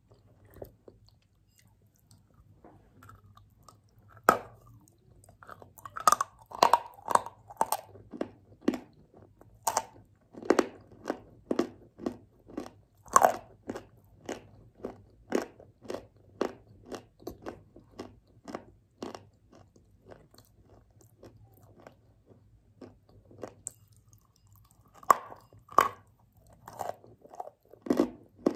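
Close-up biting and chewing of a chunk of chalk coated in Ural clay paste: a sharp crunch about four seconds in, then crisp chewing crunches about two a second, which thin out in the later part, and a fresh run of loud crunches near the end as another bite is taken.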